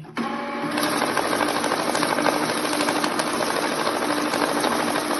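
HL 3600 banknote counting machine running in mixed-denomination mode, feeding a stack of notes through: a steady motor whir with a dense, rapid ticking of notes passing.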